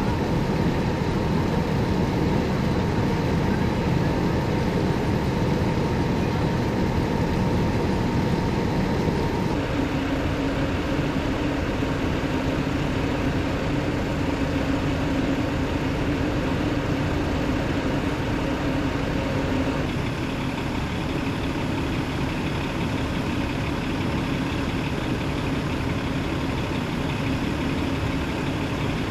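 Fire engines' diesel engines idling, a steady low running hum that changes in tone twice.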